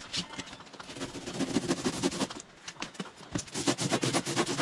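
Handsaw cutting through a block of polystyrene foam in quick back-and-forth strokes, in two spells with a short pause in the middle.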